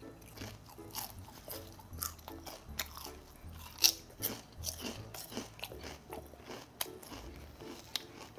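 Lay's salt and vinegar potato chips being bitten and chewed close to the microphone: a run of crisp crunches at irregular intervals, the loudest about four seconds in.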